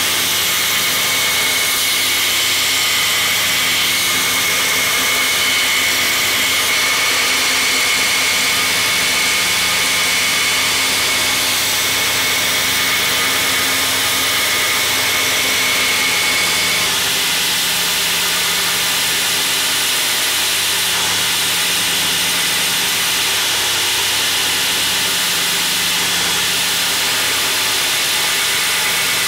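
Belt grinder running with a steel knife blank pressed against the abrasive belt: a steady grinding hiss over the hum of the motor. A thin high whine in the grinding stops a little over halfway through.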